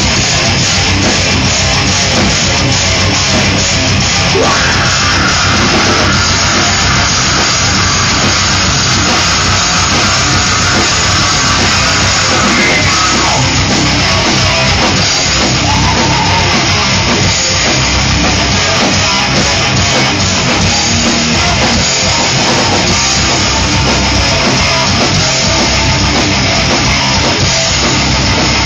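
Live rock band playing loudly, with electric guitar and drums in a dense, unbroken wall of sound.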